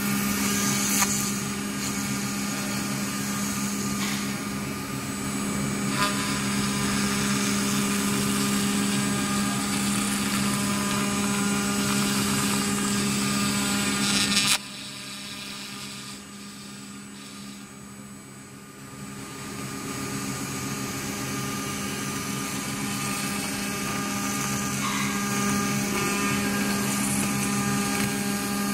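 CNC router's water-cooled spindle milling aluminium sheet: a steady high whine over the hiss and chatter of the end mill cutting metal. About halfway the cutting noise drops away suddenly, then builds back up over several seconds while the spindle keeps running.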